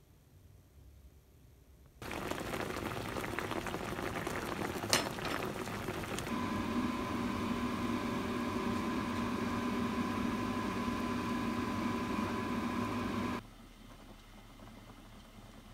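A pot of scorched, burnt food sizzling and bubbling, with a sharp click about five seconds in and a steady hum joining soon after; the sound cuts off abruptly near the end.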